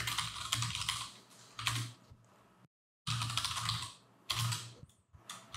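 Typing on a computer keyboard: rapid keystrokes in several short flurries with brief pauses between.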